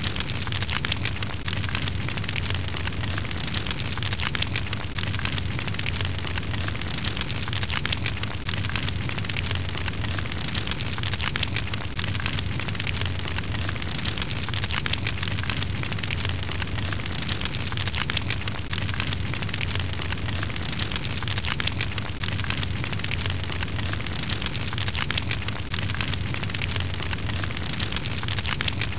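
Fire roaring and crackling: a steady rushing noise dotted with many small crackles and pops, over a low steady rumble.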